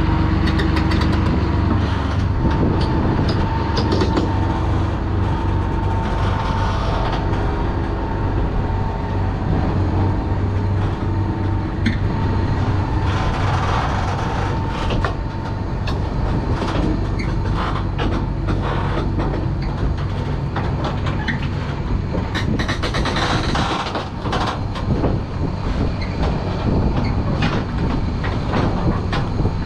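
Grain dryer and its grain-handling equipment running: a steady, loud machine drone with irregular rattling and clattering over it.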